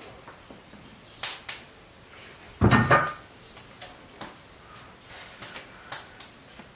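Bamboo steamer lid lifted and set down on a stone stove, a heavy knock about two and a half seconds in after a lighter click, then light taps and rustles as leaf-wrapped parcels are laid into the steamer basket.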